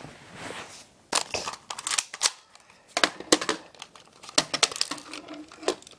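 Handling noise from an airsoft pistol being handled close to the microphone: irregular sharp clicks and knocks with rustling between them.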